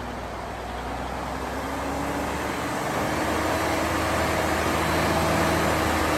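Engine of a 1966 Kenworth W900 dump truck running, growing steadily louder, with its pitch rising slightly about two seconds in.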